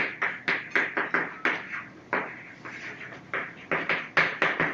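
Chalk writing on a blackboard: a quick run of sharp taps and short scratches, several strokes a second, with a brief lull about halfway through.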